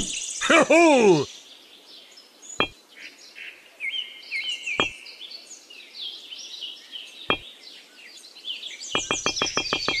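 A cat meows once near the start over a background of chirping birdsong. Three light knocks follow as miniature clay bricks are set down one at a time, and a fast repeating synthesizer tune starts near the end.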